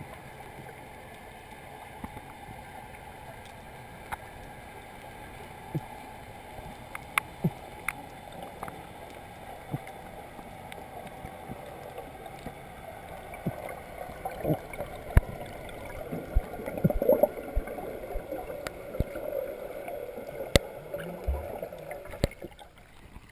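Muffled underwater noise picked up by a GoPro inside its waterproof housing, with scattered sharp clicks and knocks that come more often in the second half as swimmers move about near the surface.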